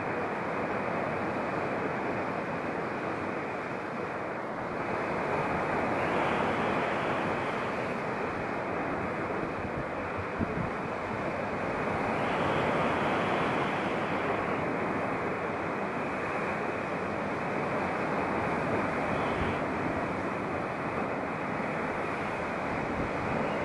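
Sea surf breaking and washing over a rocky shore below: a steady rushing wash that swells louder twice, about six and twelve seconds in.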